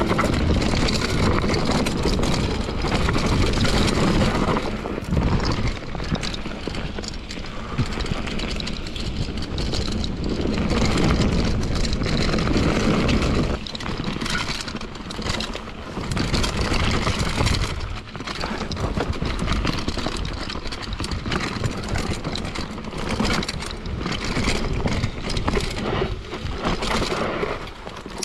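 Mountain bike riding fast down a dirt and rock trail: tyres running over dirt and stones with many sharp knocks and rattles from the bike over bumps, and wind rushing on the bike-mounted microphone.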